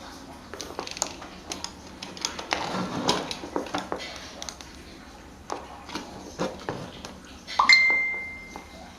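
Metal fan parts being handled and set down on a work surface, with irregular clinks and knocks. Near the end one piece strikes hard and rings at a single high pitch for about a second.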